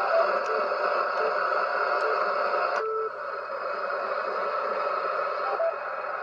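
HF amateur radio receiver's speaker putting out a steady wash of static noise across its whole audio range, with a few short beeps. The noise changes abruptly about three seconds in. It is an interfering noise that the operator hears on every HF band, of a cause he cannot identify.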